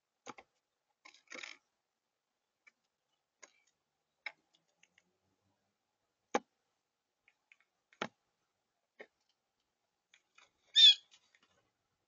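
A blue jay pecking and tapping at seeds on a wooden feeder table: a handful of sharp, irregular taps a second or more apart, then one brief, louder sound near the end.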